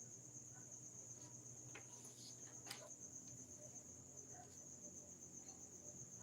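Faint, steady high-pitched insect trilling, cricket-like, with a couple of soft clicks about two and three seconds in.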